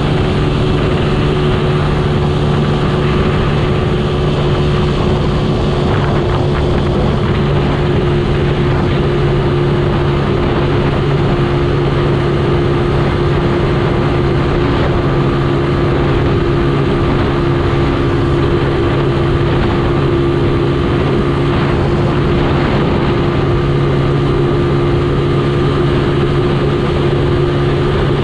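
Motorcycle engine running at a steady cruising speed, heard from on the bike, with a continuous rush of wind and road noise.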